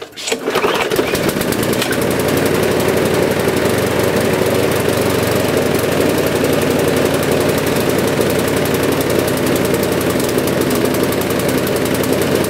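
Briggs & Stratton single-cylinder four-stroke lawnmower engine, just started and running at a steady speed. It sounds lumpy: it is due a new carburettor diaphragm and gasket.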